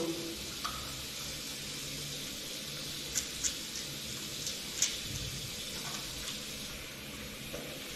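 Tap water running steadily into a washbasin while hands are rubbed together with soap, with a few faint clicks about halfway through.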